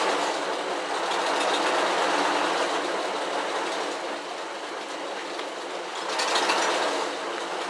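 1949 Plymouth Special Deluxe's flathead straight-six engine running with a clear misfire, an uneven clattering rhythm. The owner believes it is running on five of its six cylinders, with compression tested fine and the spark plugs suspected.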